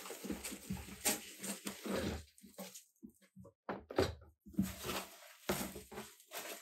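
Irregular knocks, taps and rustling of objects being handled, several sharp clunks among them.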